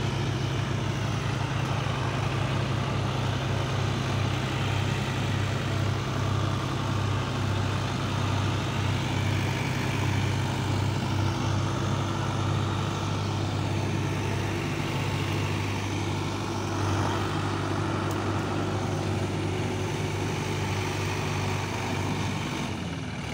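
Tractor diesel engines, the nearest a John Deere 5050 D, running steadily with a deep drone. The drone eases slightly near the end.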